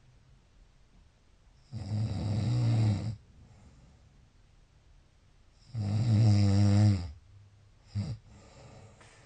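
Snoring: two loud, drawn-out snores about four seconds apart, each lasting a little over a second, with a brief short snore near the end and faint breathing between.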